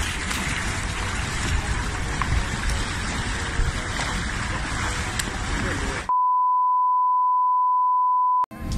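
Open-air noise of a swimming pool, water moving against a low rumble, for about six seconds. Then a single steady electronic beep tone of one pitch, louder than the ambience, lasts about two seconds and cuts off suddenly.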